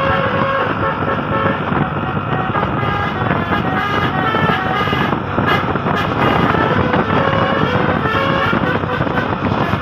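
Flamboyan bus's multi-tone telolet horn playing a running tune of short stepped notes, over vehicle engine and road noise.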